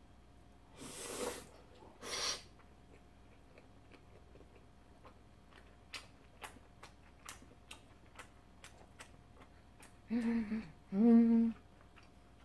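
A person eating salmon-belly sushi: two short breaths early on, then faint scattered wet clicks of chewing, then two loud closed-mouth 'mmm' hums near the end.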